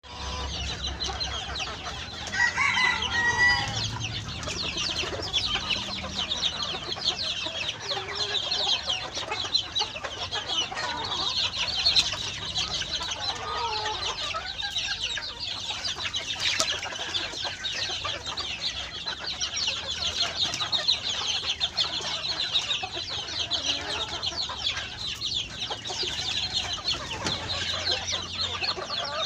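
Crossbred bantam chickens clucking and calling, over a continuous high chattering chirp. A louder, drawn-out call comes about three seconds in.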